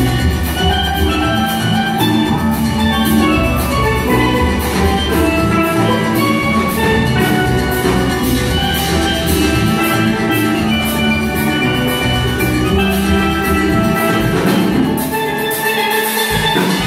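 A steel band of steelpans playing a lively tune together, many struck ringing notes over a steady rhythm kept by a drum kit. The low bass drops out for a moment near the end, then comes back in.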